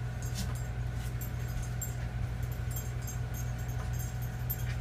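A steady low hum, with faint rustling and light clicks now and then.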